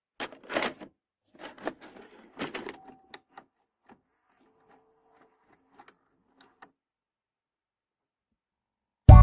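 VHS video cassette recorder loading a tape: a run of clunks and clicks from the cassette mechanism, then fainter clicks over a faint whirr as the tape threads. Loud music with drums and guitar bursts in at the very end.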